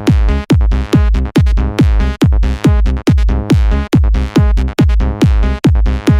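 Electronic dance music from a DJ mix: a drum-machine kick drum pounding steadily, a little over two beats a second, under heavy bass and synth chords.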